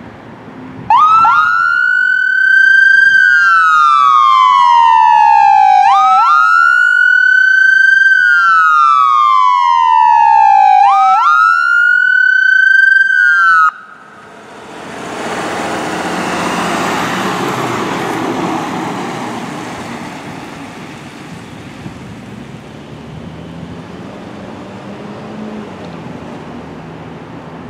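Paramedic ambulance's electronic siren on a wail: three slow cycles, each a quick rise in pitch and a long fall. It shuts off abruptly about halfway through, leaving the rumble of the ambulance's engine and tyres as it drives past, swelling and then fading.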